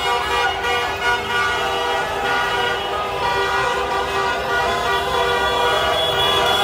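Many car horns honking at once, long and overlapping, over the sound of a slow street traffic jam: drivers honking in celebration.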